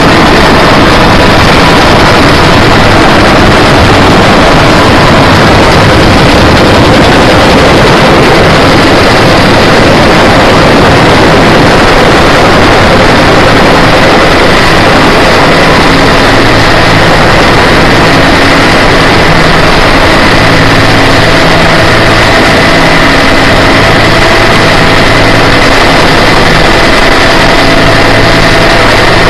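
Military helicopter in flight, heard from inside its cockpit: loud, steady rotor and turbine noise with a faint high whine through it.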